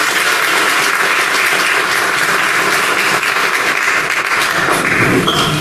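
Audience applauding steadily, approving the proposed meeting chair by acclamation. The clapping dies away near the end.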